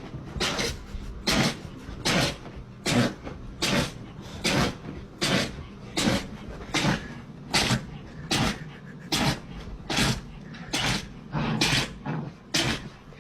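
A pet sneezing over and over in a long, steady fit, about seventeen short sharp sneezes, one roughly every three-quarters of a second.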